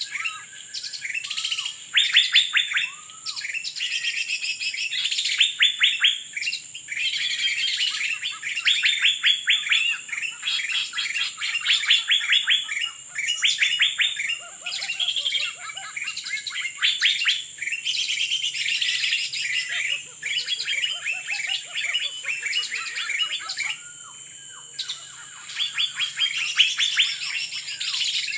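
Birds chirping in quick, dense runs that come in repeated bursts of a second or two, over a steady high-pitched whine.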